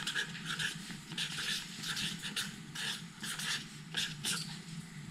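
Sharpie felt-tip marker scratching on paper in short, irregular strokes as letters are written, over a steady low hum.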